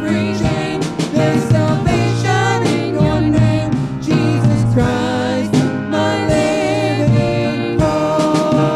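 Live worship band playing a song: a woman and a man singing into microphones over grand piano and a Pearl drum kit.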